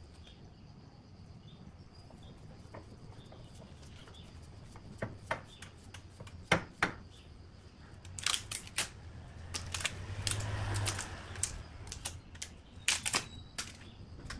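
Bark being pulled and snapped off a rough log by hand: a series of sharp cracks and knocks, sparse at first and coming thicker in the second half, with a short rustling scrape about ten seconds in.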